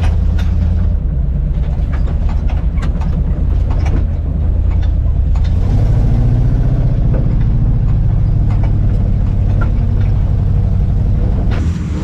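A 4x4 trail wrecker's engine running steadily while the truck creeps along a rutted, muddy trail, heard from inside the cab. The engine note climbs a little about halfway through, and scattered knocks and rattles come from the cab and body as the truck bumps over the ruts.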